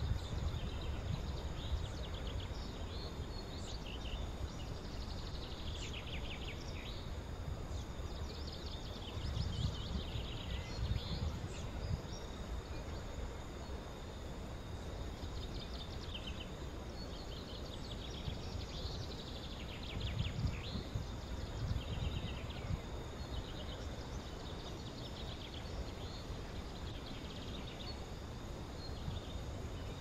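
Outdoor ambience of birds chirping and trilling in short, scattered calls over a thin steady insect hum, with a low rumble of wind that swells a couple of times.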